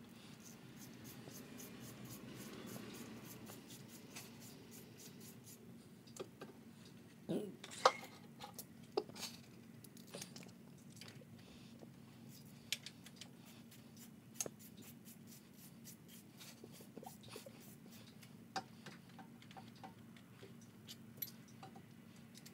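Scattered faint clicks and clinks of hand tools on metal engine parts at irregular intervals, the loudest about eight seconds in, over a steady low hum.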